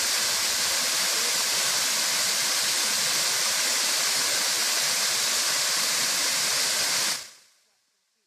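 Manoa Falls, a tall narrow waterfall, pouring into its plunge pool: a steady, even rushing hiss that fades out near the end.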